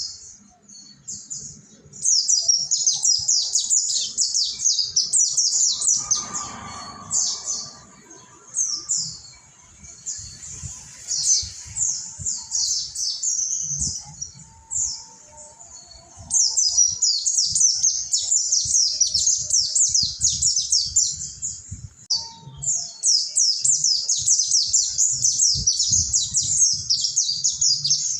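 A group of mountain white-eyes (pleci monty) singing together in fast, high twittering bouts of quick downslurred chirps. The song thins out twice, then resumes densely.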